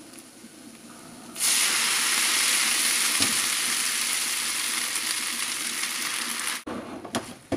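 Hot bacon fat and oil in a frying pan sizzling loudly as wet, just-boiled spaghetti is dropped in. The hiss starts suddenly about a second and a half in and stops abruptly about a second before the end, followed by a couple of light clicks.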